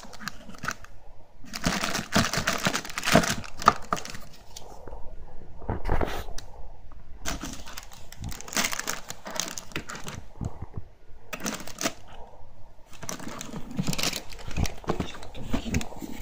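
Cardboard box and plastic packing being handled and opened by hand: irregular rustling, crinkling and scraping in bursts.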